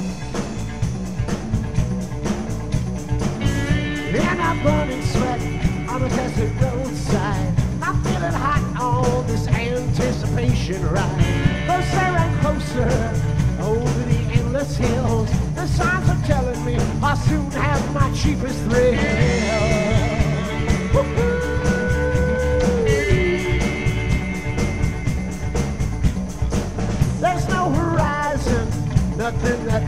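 Rock band playing live: drum kit, electric guitars and electric bass, with a man singing lead into a microphone. The vocal comes in a few seconds in.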